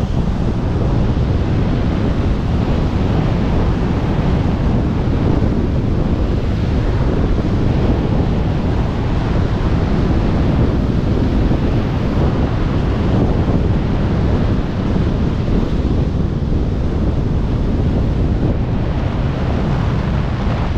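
Loud, steady wind noise from high-speed airflow over a helmet-mounted action camera's microphone in wingsuit flight, a constant low rushing with no breaks.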